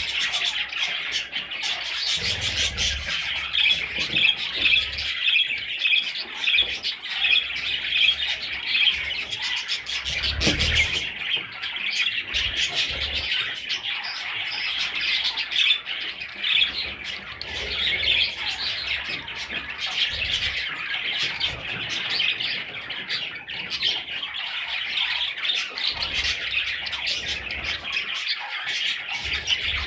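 A group of budgerigars chirping and squawking in continuous, overlapping chatter.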